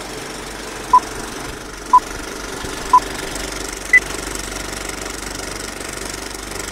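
Old film projector sound effect: a steady mechanical clatter and rattle. Four short beeps ring out a second apart over it, the first three at one pitch and the fourth higher.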